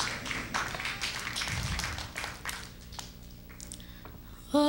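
Scattered clapping from a small audience, quick irregular claps that thin out and die away over the first few seconds. Just before the end, a young female singer comes in on a held opening note into a microphone.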